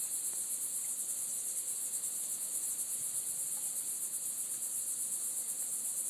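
A steady, high-pitched insect chorus: a continuous shrill buzz of singing insects.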